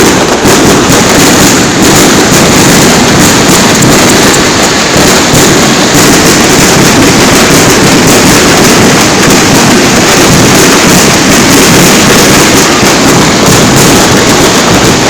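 Aerial fireworks going off in a dense, continuous barrage. The bursts come so fast that they run into one another, loud enough to push the microphone near its limit throughout.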